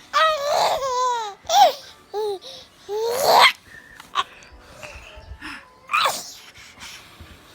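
Baby giggling and squealing in short, high-pitched voiced outbursts, one rising squeal about three seconds in, then mostly quiet with a single short squeal near the end.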